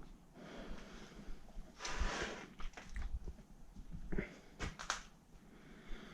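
A man breathing heavily close to the microphone, a few short breaths, the strongest about two seconds in, mixed with light rustling and knocks.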